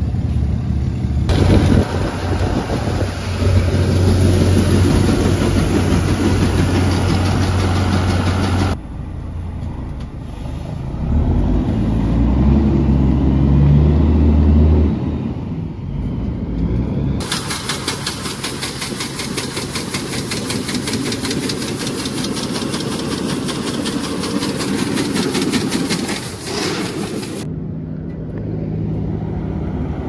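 Farm vehicle engines running, a grain semi-truck among them, in several clips that change abruptly every several seconds.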